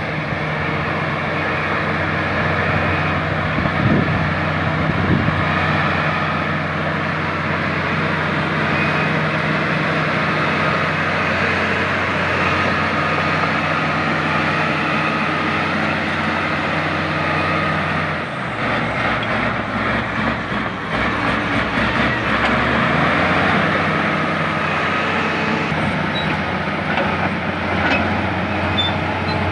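LiuGong crawler bulldozer's diesel engine working steadily under load, with a metallic squeal and clatter from its steel tracks. About eighteen seconds in the engine note changes and the clattering picks up for a few seconds.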